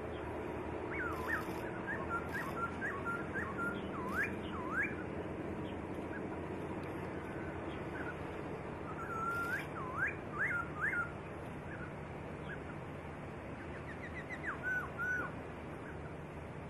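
A songbird singing clear whistled notes that swoop up and down, in three phrases: a long one starting about a second in, another about halfway through and a short one near the end, over a steady low background hum.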